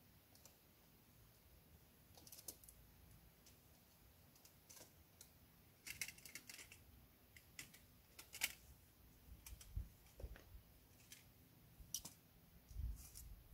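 Faint, scattered clicks and light taps of small camping gear being handled, with near silence between them.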